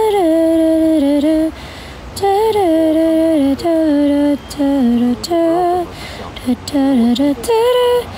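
A woman singing a slow melody unaccompanied, close to the microphone, in short phrases of held notes with brief breaks between them.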